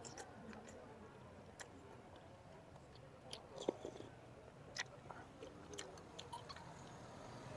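Faint close-up chewing of a mouthful of bakso with noodles, with a few soft clicks scattered through.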